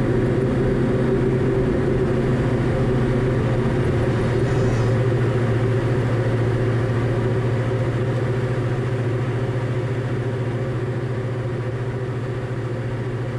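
Diamond DA40 light aircraft's propeller engine at full takeoff power through the takeoff roll and lift-off, a steady drone that eases off slightly in loudness towards the end.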